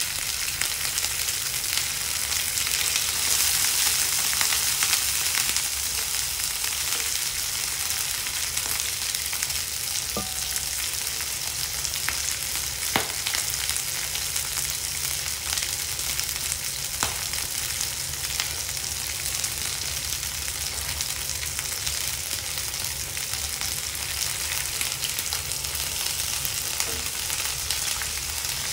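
Sliced pork belly and garlic cloves frying in oil in a nonstick pan: a steady sizzle with a few sharp pops of spitting fat.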